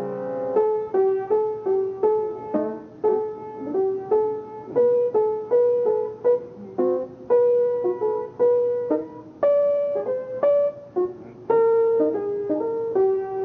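Jazz piano playing a melody of single notes, about two to three a second, after a full chord at the start.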